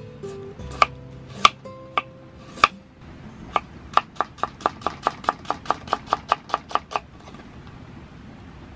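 Kitchen knife cutting a carrot on a wooden cutting board. A few slow, separate cuts come first, then a quick even run of chopping strokes, about five a second, which stops about seven seconds in.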